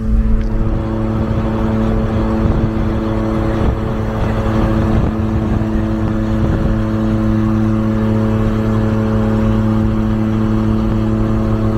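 Kei truck's small engine running steadily at highway cruising speed, heard from inside the cab as an even hum over road and wind noise.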